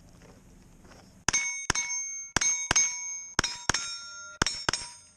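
A 9mm carbine fired in quick pairs at steel plates: four double-taps about a second apart, starting about a second in. Each shot is followed by the ringing of a struck steel plate.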